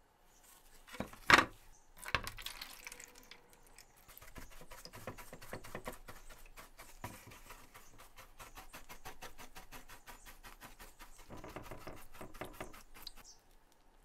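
Bristle paintbrush scrubbing a brass plate under liquid in a plastic tray, a fast run of scratchy strokes stripping the photo-etch resist off the etched brass. A single sharp knock comes about a second in.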